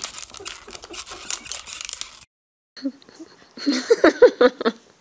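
Crinkling and rustling of plastic wrapping that stops abruptly. After a short gap, a baby's voice comes in a quick run of short sounds, about five a second, near the end.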